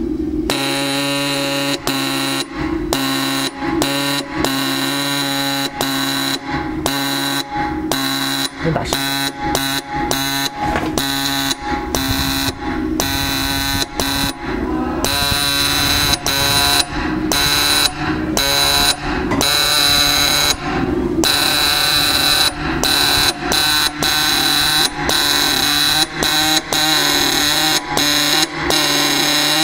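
Pneumatic dot peen marking machine's stylus pin hammering rapidly into a metal plate, a loud steady buzz broken by many short gaps as it stops and starts.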